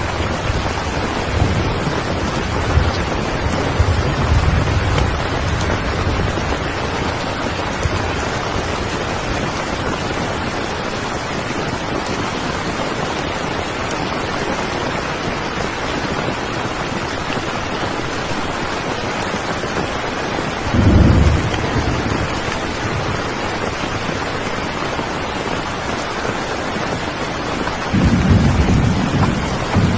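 Steady rain falling, with low rumbles of thunder in the first few seconds, about twenty seconds in, and again near the end.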